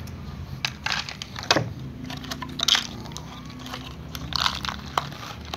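Irregular crackling and crunching as cats feed from a clear plastic food bag, the plastic crinkling under their mouths and the hand holding it, with a few louder cracks.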